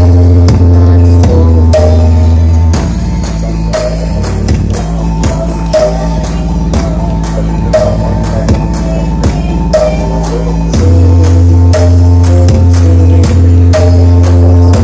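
Music played very loud through a 'horeg' carnival sound system. It has a heavy, booming bass line under a steady drum beat. The bass drops lower and the whole mix gets somewhat quieter about 3 s in, then the deeper, louder bass returns near 11 s.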